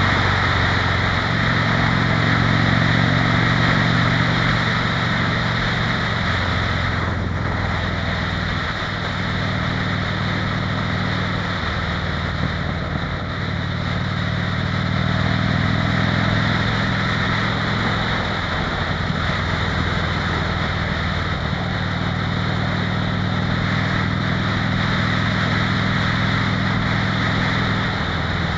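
Harley-Davidson motorcycle's V-twin engine running at road speed, heard from the rider's seat with wind rushing over the microphone. The engine note shifts down and back up several times as the throttle changes.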